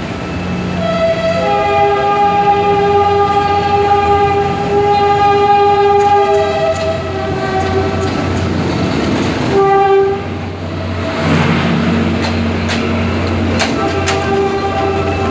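Commuter train running, with a steady low engine hum under long held horn tones at several pitches that switch between two chords, break off about ten seconds in and come back near the end. A rush of noise rises about ten seconds in.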